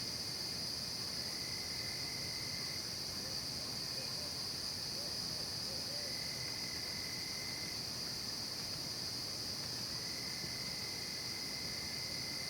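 Night insect chorus of crickets: a steady, high, shrill drone, with a lower trill that comes in three times, a second or two each.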